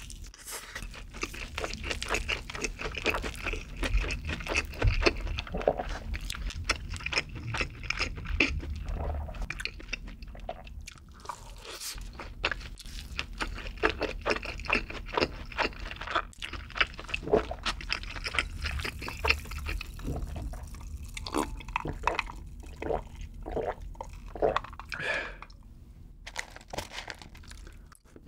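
Close-miked chewing of a full mouthful of food: a dense, steady run of small clicks and crackles, easing into a quieter spell a couple of seconds before the end.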